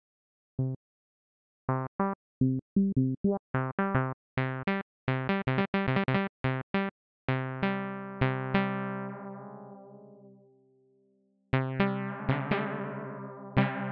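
SyncSawSynth, a software synthesizer with a sawtooth oscillator, playing a pattern of short notes whose tone grows brighter as the filter cutoff is opened. About seven seconds in, one longer note fades out over about three seconds. After a short silence, closer-spaced notes start again.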